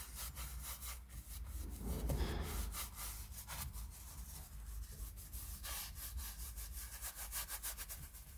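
Detailing brush scrubbing leather cleaner into a leather armrest: a quick, even run of short bristle-on-leather rubbing strokes as the cleaner works up into foam.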